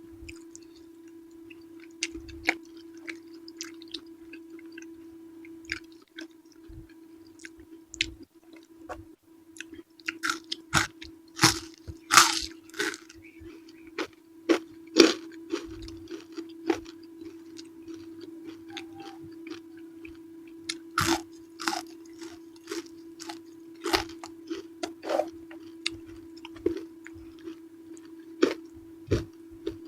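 Close-miked eating: a person chewing and biting into purple eggplant with sambal, with irregular wet crunches and smacks, loudest through the middle of the stretch.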